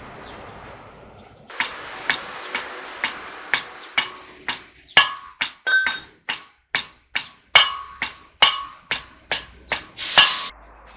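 Hammer blows on metal, about two a second, growing louder and ringing sharply, with a short harsh noise near the end.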